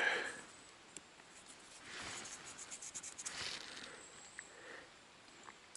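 Scratchy rustling of dirt being rubbed off a freshly dug-up find, lasting about two seconds from about two seconds in, with a faint click about a second in.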